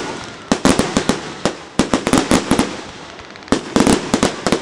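Fireworks display: rapid volleys of sharp bangs and crackles. One flurry comes about half a second in, it dies down to a lull around three seconds, and a dense run of bangs starts about three and a half seconds in.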